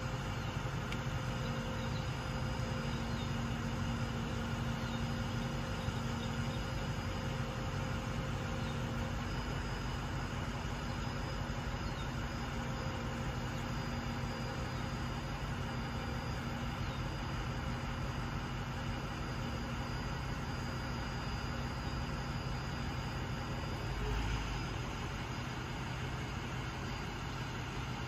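A roll-off garbage truck's engine running steadily at a constant speed, a low even hum with a steady tone. There is a brief low bump near the end.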